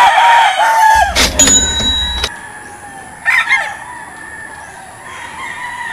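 Rooster crowing, a loud wavering crow that ends about a second in, followed about three seconds in by a shorter call from a rooster.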